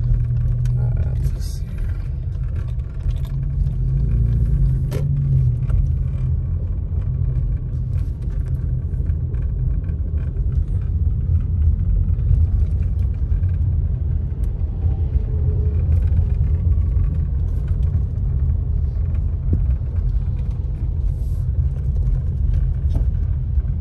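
Steady low rumble of a car driving, heard from inside the cabin: the engine and the tyres running on wet pavement.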